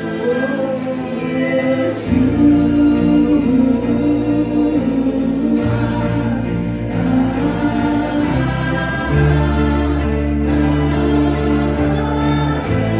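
Live worship band playing a slow song while voices sing long held notes without clear words. Deep bass notes come in about two seconds in, under changing chords.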